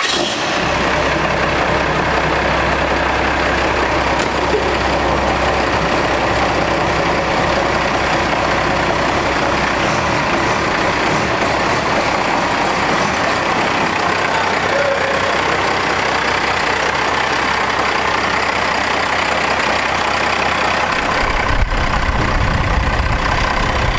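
First-generation Dodge Ram's 12-valve Cummins inline-six turbo diesel, freshly fitted with a compound turbo kit, running at a steady idle through its stack exhaust. About two seconds before the end the sound changes to a deeper, rougher rumble.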